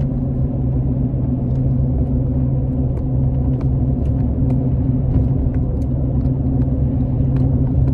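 Pickup truck driving at a steady pace, heard from inside the cab: a steady low engine drone over road rumble.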